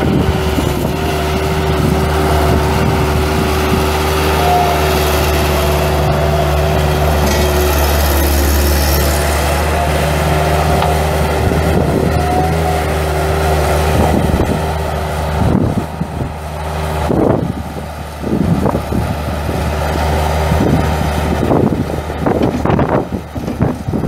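2003 Bobcat 763 skid steer's four-cylinder diesel engine running, a steady drone with a whine over it. After about fifteen seconds the sound turns uneven, rising and falling with several knocks.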